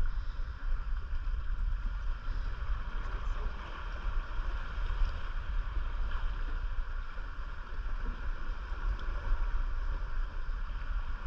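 Steady ambience aboard a small boat: a low, unsteady rumble like wind buffeting the microphone, under a constant hiss, with no distinct event standing out.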